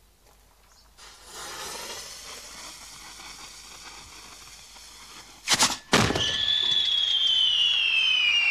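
Firework mortar being fired with gunpowder: the lit fuse hisses steadily for about four seconds, then two sharp bangs as the charge goes off and the shell is blown out of the tube, followed by a high whistle that slowly falls in pitch.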